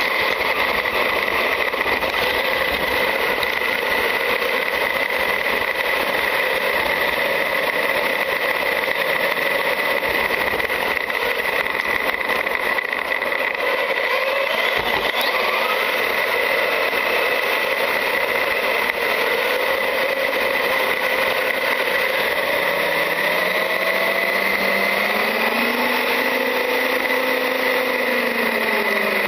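Traxxas UDR brushless electric RC truck driving, heard from a camera mounted on it: a steady high whine from the motor and drivetrain over a constant rush of tyre and wind noise. Near the end, lower tones rise and fall as the speed changes.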